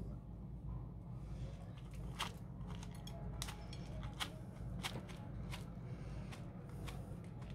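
A series of light, sharp clicks and taps, spaced irregularly about one every half to one second, over a steady low hum.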